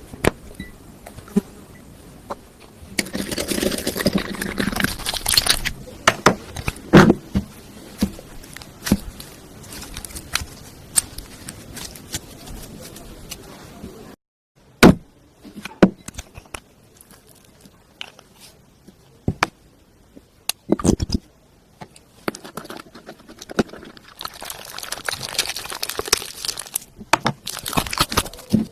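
Hands-on handling sounds while making slime: scattered clicks and knocks from containers and utensils, with two stretches of rustling and scraping, one a few seconds in and one near the end, and a short break in the sound about halfway.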